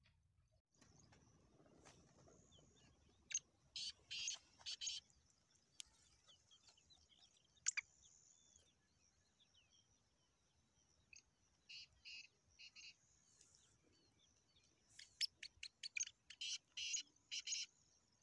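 Caged black francolins calling: three runs of quick, high, repeated notes, the first about three seconds in, the second about twelve seconds in, and the longest near the end.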